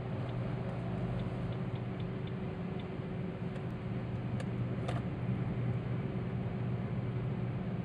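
Steady drone of a car driving at highway speed, heard from inside the cabin: engine and road noise with a low hum, and a few faint clicks near the middle.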